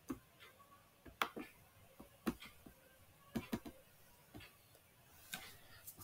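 Faint, irregular computer mouse clicks, about eight scattered over six seconds.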